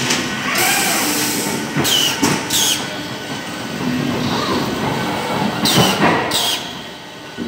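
CPS CL86 case packer running, packing net bags of onions: a steady mechanical din from conveyors and pick-and-place motion, broken by about five short, sharp hisses.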